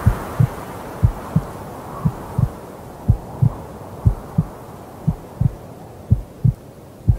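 Heartbeat sound effect: pairs of low thumps, lub-dub, about once a second, over a faint soft hiss.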